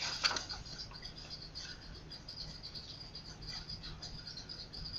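Faint background of a voice recording between sentences: a steady high-pitched chirring with a low hum beneath it, and a couple of soft clicks just after the start.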